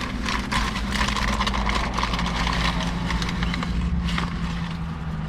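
Paper to-go bag and food wrapping crinkling and rustling in a run of quick crackles, over a steady low hum of a car and passing traffic.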